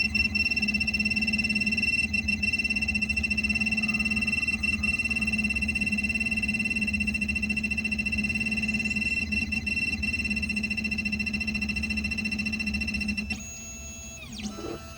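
Xhorse Dolphin XP005 key-cutting machine running its decode cycle, its motors whining steadily with several high tones over a low hum as the tracer drags along the cuts of a house key. The motor sound cuts off about two seconds before the end.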